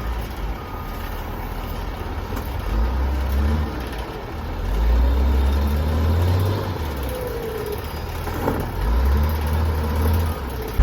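Vehicle engine and road rumble, a low rumble that swells and eases several times.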